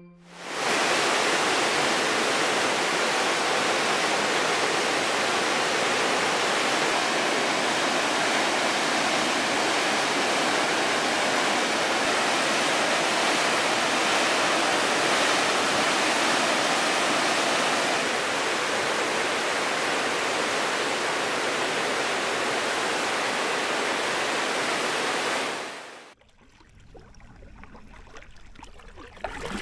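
River whitewater rapids rushing loudly and steadily, cutting off abruptly about 26 s in. After that come much quieter water sounds from a packraft being paddled on calm water.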